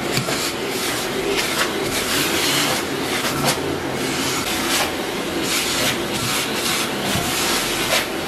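Vacuum cleaner running steadily with its hose nozzle drawn over velvet upholstery, the suction noise broken by frequent short scratchy rubs as the nozzle moves across the fabric. It cuts off abruptly at the very end.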